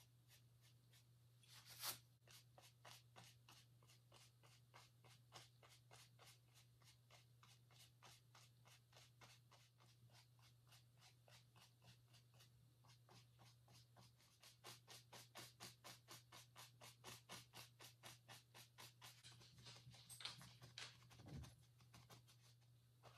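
Faint, rhythmic scratching of a paintbrush stroked and dabbed on canvas, about four strokes a second, with a sharper scrape about two seconds in and another near the end. A low steady hum lies underneath.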